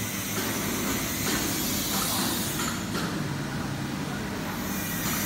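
Steady hum and hiss of a fiber laser cutting machine running in its workshop, the high hiss easing for a couple of seconds in the middle.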